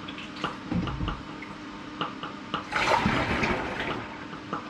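Apple puree sugar water poured from a plastic jug into a large funnel on a fermenting vessel, a splashing gush about three seconds in. Behind it, an air still's steady popping, a few pops a second.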